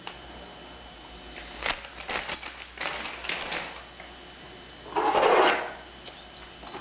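Small alarm-kit parts being handled: a run of light clicks and rattles about two seconds in, then a louder rustle about five seconds in.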